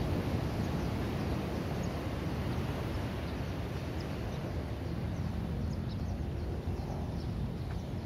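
Indian Ocean surf breaking and washing over a rocky beach: a steady low rush of waves. From about two seconds in there are faint, very short high chirps.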